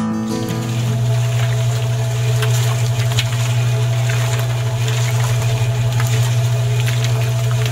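Small electric motor of a miniature toy concrete mixer switched on and running, turning the drum through its gear: a steady hum with scattered light clicks and rattles.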